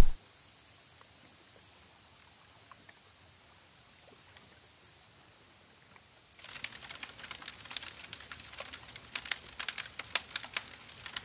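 Faint, steady, high-pitched chirring throughout. From about six seconds in, a wood or charcoal fire under a grill crackles and pops irregularly.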